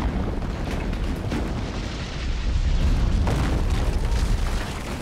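Film battle sound effects of a stone city wall collapsing: a deep, continuous rumble of falling masonry with scattered crashes and impacts.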